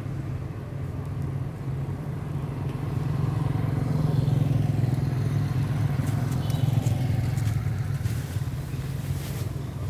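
Low, steady engine rumble of a motor vehicle, growing louder about three seconds in and easing off near the end.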